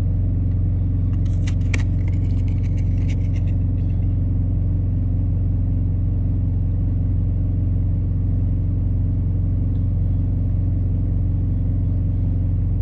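Semi truck's diesel engine idling, a steady low rumble heard inside the cab. A few light crackles and rustles come between about one and three and a half seconds in, as the cards in hand are handled.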